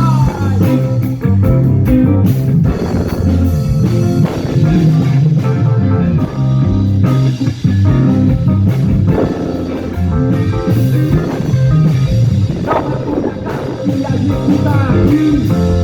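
Instrumental music with a prominent bass line, guitar and a steady beat, with no vocals: a break between rap verses.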